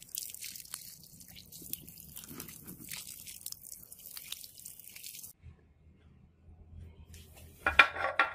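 Crunching and crackling as hands break and pick a brittle, crusty cast piece out of a small metal cup. After a pause, a short loud rasping burst near the end as a band saw starts cutting a small block.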